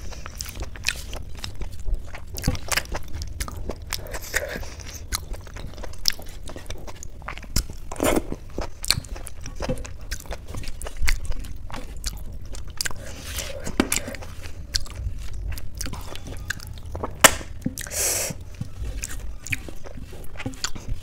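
Close-miked eating by hand: chewing and mouth clicks over mouthfuls of mashed boiled rice with potato and ghee, many short sharp clicks throughout. Fingers scrape the food together across a steel plate between bites.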